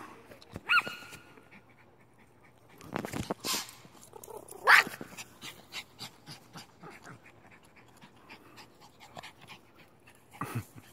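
A dog panting close by, with a short, louder high cry about five seconds in.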